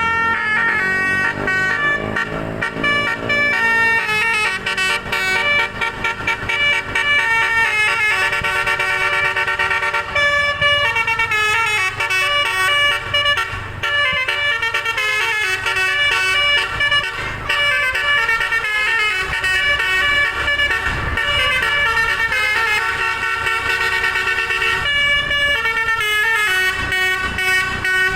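Bus 'telolet' musical air horn, its trumpets driven by an electronic horn module, playing a fast tune of short notes that step up and down in pitch, almost without a break.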